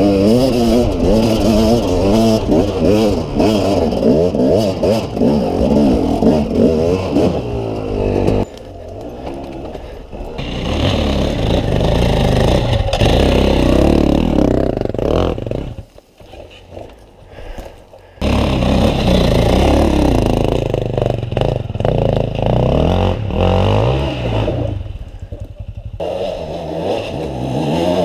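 Dirt bike engine revving up and down again and again as it is ridden along a rough forest trail, heard close up from the rider's helmet camera. The engine note falls away twice, briefly about a third of the way in and for a couple of seconds just past the middle.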